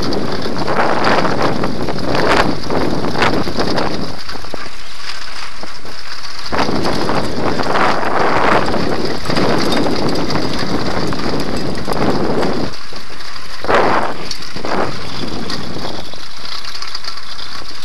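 Handbike rolling over cobblestones, the bike and its camera mount rattling and vibrating, in uneven surges with a few short lulls.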